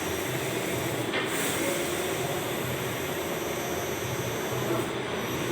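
Allwin 512i large-format inkjet printer running while printing fabric: a steady mechanical running noise that rises and falls slightly in its low rumble.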